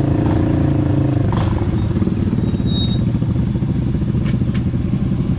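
A small motorbike-type engine running steadily up close, its note shifting slightly about a second in. Two short clicks come near the end.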